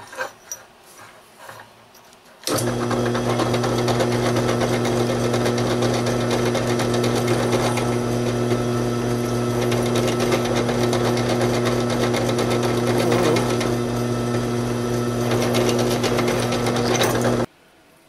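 Drill press running steadily with a constant motor hum and fine rattle while a number 44 bit drills out the screw holes in a knife's pocket clip. It starts about two and a half seconds in and shuts off suddenly just before the end.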